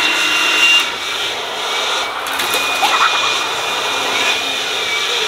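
Handheld leaf blowers running steadily, a rush of air with a thin high fan whine, blasting loose hay.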